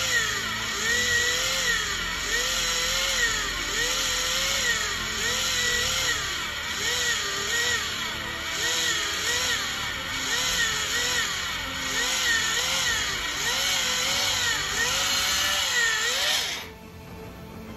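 Handheld electric cheese grater running as it grates hard cheese, a motor whine whose pitch dips and recovers about once a second. It cuts off suddenly near the end.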